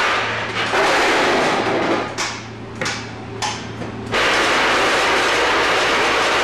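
Packaging line running, with dog-bone chews clattering along a stainless steel incline conveyor and into metal feed chutes: a dense, steady rattle with a low hum under it. About two seconds in the clatter drops away for a couple of seconds, broken by three sharp knocks, then returns at full level.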